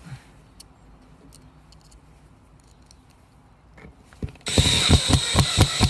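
Power drill driving a screw to fix a concealed hinge to a cabinet door: after a quiet start, a loud whine with rapid clicking begins about four and a half seconds in.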